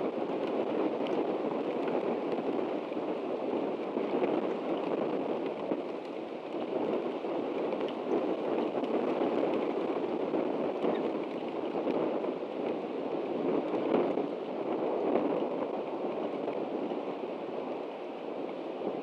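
Steady rain falling, a continuous even hiss with small swells in level.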